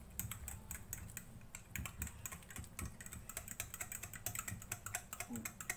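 Rapid, irregular clicking and scraping of a utensil against a bowl as spices are stirred into thick yogurt.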